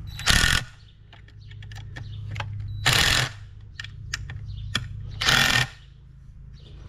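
Cordless drill/driver tightening the screws on a sand filter's multiport valve cover, with three short, loud bursts about two and a half seconds apart as screws are driven down.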